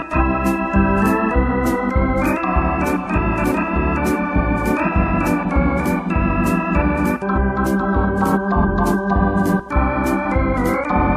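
Electronic arranger keyboard played with an organ sound: sustained chords and a melody line over a steady drum beat of about two hits a second and a pulsing bass.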